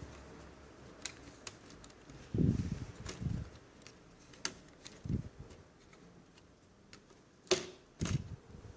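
Small parts of a netbook being handled: scattered sharp plastic-and-metal clicks and a few dull low knocks, the sharpest click about seven and a half seconds in.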